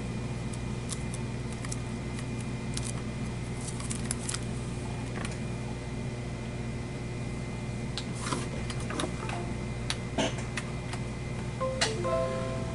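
Scattered light clicks and handling knocks as a USB gaming keyboard and its cable are handled and plugged in, over a steady low hum.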